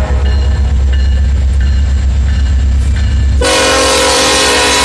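Lead locomotive of a Norfolk Southern freight, an EMD SD70ACe, blowing its air horn for a grade crossing: a loud, long blast of several tones together starts about three and a half seconds in, over a steady low rumble.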